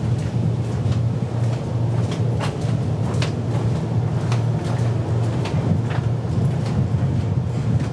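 Footsteps of someone walking, sharp steps about two a second, over a steady low rumble.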